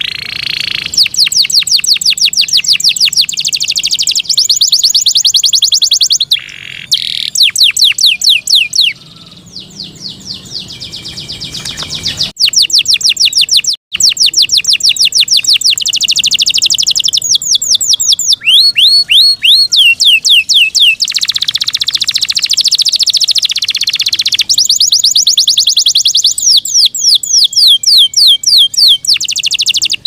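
Yorkshire canary singing loudly: rolls of fast, rapidly repeated sweeping notes alternating with held whistles, the phrase changing every second or two, with a quieter stretch a little before the middle.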